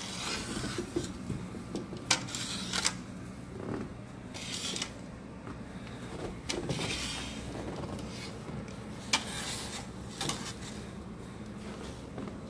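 Snow shovel scraping snow across wooden deck boards in about five separate strokes, with a few sharp knocks of the blade between them.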